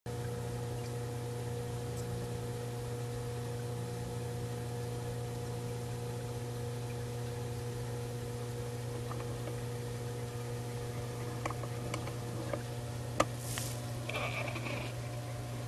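Dolphin robotic pool cleaner's motor humming steadily as it crawls along the pool floor. Near the end come a few light clicks, one sharp click and a brief rush of noise.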